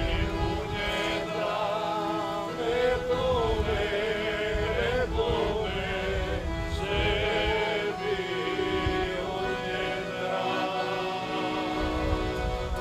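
A group of men singing a Serbian folk song together, their voices held in long sustained lines, over a steady accordion accompaniment.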